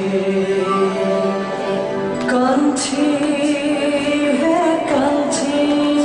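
Nepali song playing: a woman singing long held notes over instrumental backing, with a few sharp percussion strikes.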